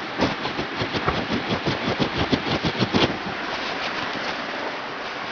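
A rapid run of sharp clicks or taps, about five or six a second, for roughly three seconds over a steady hiss; then only the hiss continues.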